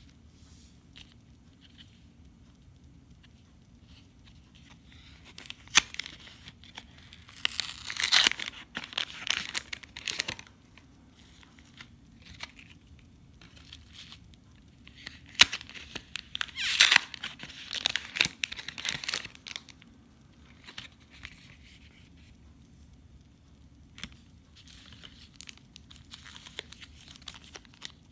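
Plastic packaging being torn open and crinkled by hand, in two bouts of tearing and rustling about ten seconds apart, with lighter crinkling near the end.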